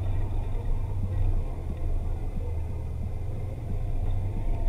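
Side-by-side UTV engine running steadily, a low drone with a deep rumble underneath.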